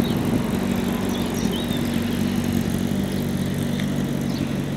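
1963 Volvo Laplander L3314's 1.8-litre four-cylinder petrol engine running with a steady drone, its pitch dropping a little just over halfway.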